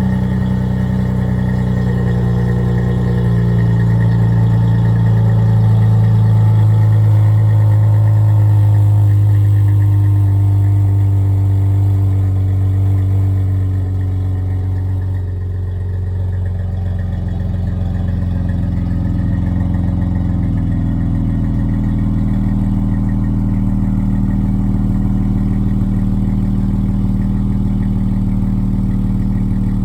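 Dodge Charger GT's 3.6-litre V6 idling after a cold start, heard through a Flowmaster 40-series muffler; the steady exhaust drone shifts to a lower, settled note about halfway through.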